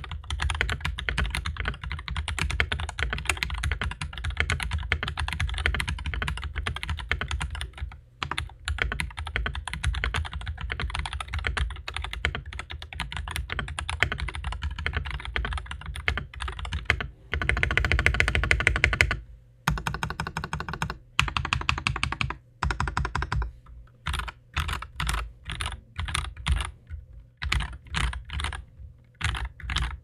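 Typing on an AWS68 mechanical keyboard fitted with lubed JWK "Lagoon" 67g tactile switches and PBT keycaps in its stock plastic case. Fast continuous keystrokes build to a denser rapid flurry about two-thirds of the way through, then give way to separate key presses, a few a second, near the end.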